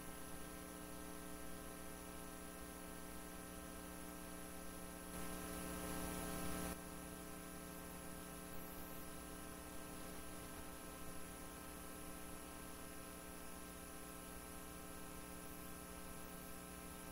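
Steady electrical hum with a layer of hiss, many fixed tones stacked evenly, with a brief louder rush of noise about five seconds in that lasts a second and a half.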